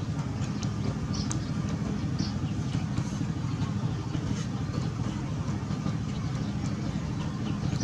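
A steady, engine-like low hum, with faint scattered crackles above it.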